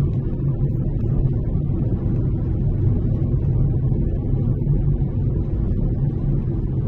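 Steady low rumble of a car driving on the road, heard from inside the cabin: engine and tyre noise with no distinct events.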